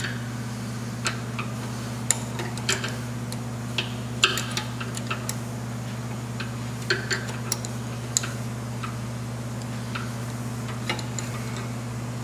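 Irregular light metal clicks of a 7/16 wrench being turned and repositioned on a nut as it is snugged up, over a steady low hum.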